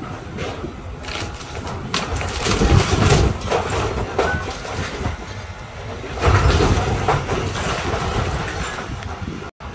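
Excavator tearing down a wood-framed house: timber cracking and splintering and debris crashing down over the machine's engine, with two heavier crashes about two and a half and six seconds in.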